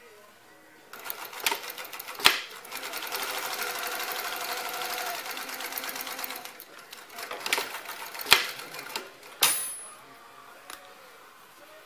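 Tony H 315 off-arm zig-zag walking-foot industrial sewing machine, driven by an Efka DC motor, stitching in a run of rapid, even needle strokes that speed up to a steady pace, then slow and stop about ten seconds in. Several sharp clacks come at the start of the steady run and near the end.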